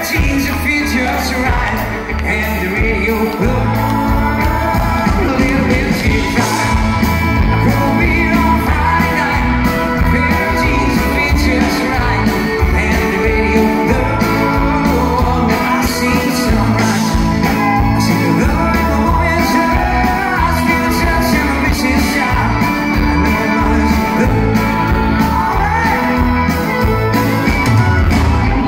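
Live band performance of a country-rock song: a male lead singer over electric guitars and bass, with a steady beat, loud and unbroken throughout.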